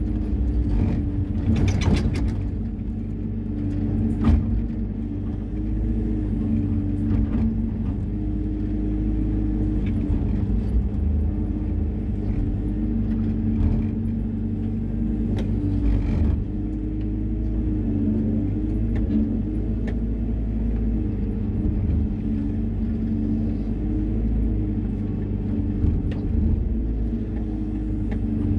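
Hyundai 140 wheeled excavator's diesel engine running steadily under hydraulic load, heard from the operator's cab, with a few sharp knocks as the bucket works the ground.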